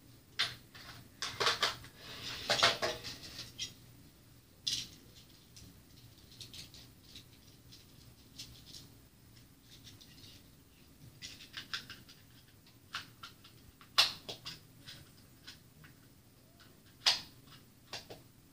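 Dolls and doll clothes being handled: irregular rustling with light plastic clicks and taps, a busier run of rustles about two seconds in and a few sharp clicks later on.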